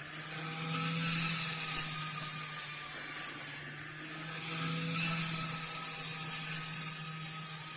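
Homemade grass cutter driven by a sewing-machine electric motor, running steadily with a constant hum and a high hiss. It grows louder twice, about a second in and again around five seconds.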